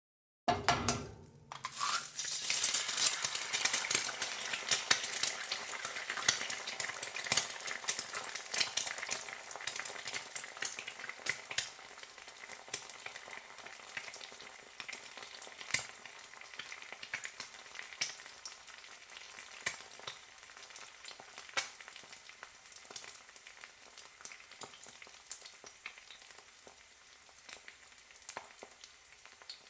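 Egg frying in a hot pan: the sizzle starts abruptly about a second in and is loudest at first. It is full of sharp pops and crackles, then gradually dies down.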